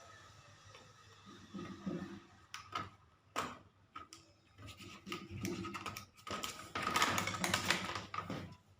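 Small plastic clicks and taps from a laptop's casing and parts being handled and taken apart, scattered at first and turning into a denser clatter about seven seconds in.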